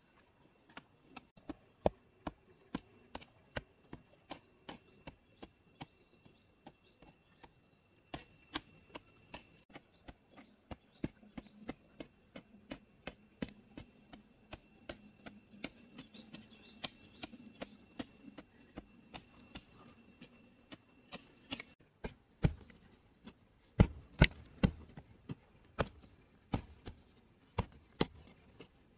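Short-handled hoe chopping into loose soil over and over, about two strokes a second, each a sharp thud-scrape of the blade biting into the dirt. The strikes get louder and heavier near the end.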